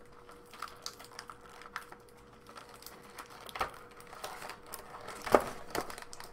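Clear plastic action-figure packaging being handled: a run of small irregular clicks and crinkles as a figure is worked out of its plastic bag, with one louder knock about five seconds in.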